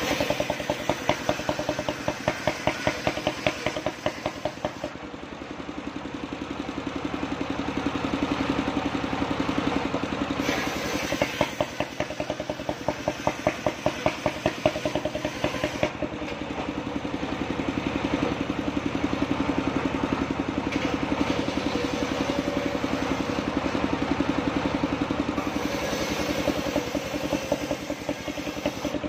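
The engine of a mobile circular-saw rig runs steadily with an even pulsing beat, driving a large circular saw blade. Stretches of brighter hiss come as the blade cuts lengthwise through a log.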